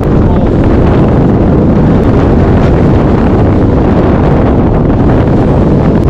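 Strong wind blowing across the microphone, a loud, steady, deep noise that covers everything else.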